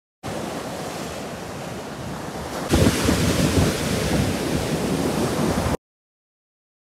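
Ocean surf breaking on a beach, with wind on the microphone. It grows louder about two and a half seconds in and cuts off abruptly about a second before the end.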